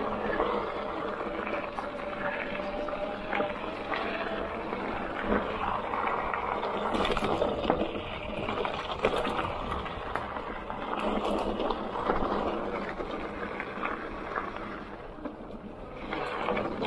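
Magnum Peak T7 hardtail electric mountain bike rolling over a rocky dirt trail: a steady rush of tyres on dirt and stones, with scattered clicks and knocks as the bike rattles over rocks.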